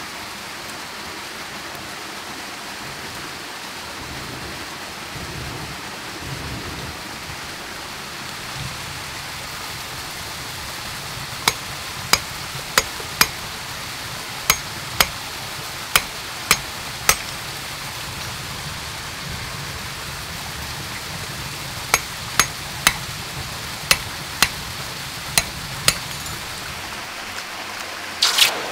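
Machete blade striking a thin metal wire laid across a stone, in two runs of sharp knocks, roughly one and a half a second, over a steady rush of stream water. A short splash of water on gravel near the end.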